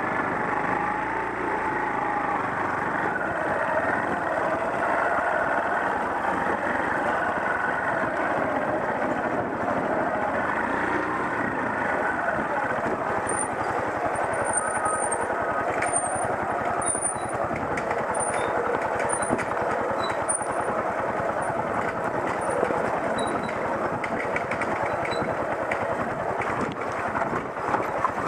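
Off-road motorcycle engine running as the bike rides a rough dirt trail, heard from on the bike, its pitch wavering with the throttle.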